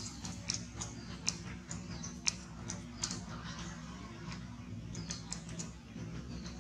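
Scattered sharp, irregular clicks and crackles as a baby macaque's hands grab and pull at bananas among dry leaves, over a steady low hum.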